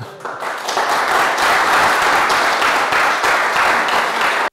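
Audience applauding: many hands clapping, building over the first second into a dense, steady applause that cuts off suddenly at the end.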